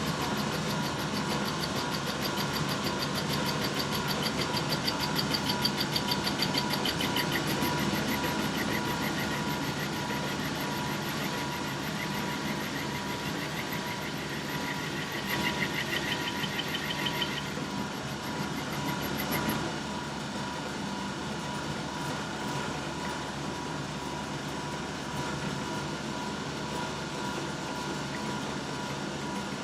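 1941 South Bend 13-inch lathe running while the tool cuts a hard sawmill blade-guide roller that runs out on its bent shaft: a steady motor and gear hum with a fast, even, high-pitched rhythmic cutting sound over it. The cutting sound stops abruptly about twenty seconds in, leaving the lathe running on its own.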